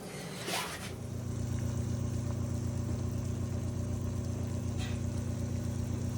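An electric appliance motor switches on about a second in and runs with a steady low hum.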